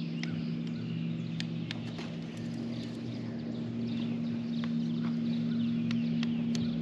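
A steady low hum, with scattered light clicks and birds chirping in the background.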